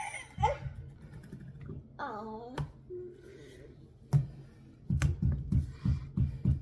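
Hands working a flexible silicone mold off a cast concrete jar on a tabletop: a sharp knock or two, then a run of soft rapid thumps and rubbing as the stiff mold is pushed and peeled from the concrete.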